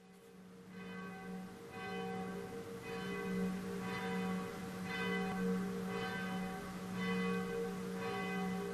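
Church bell ringing, struck about once a second with a long sustained hum between strokes, fading in at the start.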